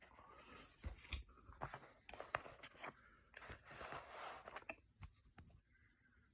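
Faint rustling, crinkling and scattered clicks of a 4K steelbook case and its packaging being handled, dying down about five seconds in.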